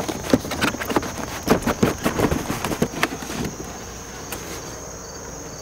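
Large cardboard box being handled and opened: a quick run of scrapes, taps and rustles of cardboard for about three and a half seconds, then it goes quieter. A steady high-pitched insect chirr runs underneath.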